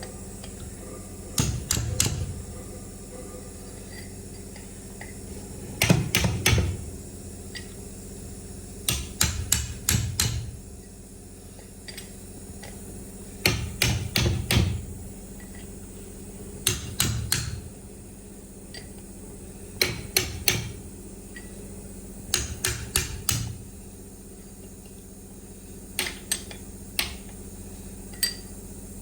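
Hammer blows on the metal parts of a truck steering column under repair: short clusters of a few quick strikes, repeated every three to four seconds, with single taps near the end. A steady low hum runs underneath.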